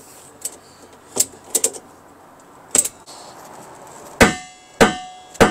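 A few light metallic clicks and taps, then, about four seconds in, heavy hammer blows on metal about half a second apart, each leaving a ringing tone.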